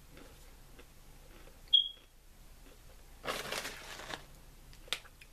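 Beanitos black bean chip being bitten and chewed: a sharp snap about two seconds in, then about a second of crackling crunch and a small click near the end.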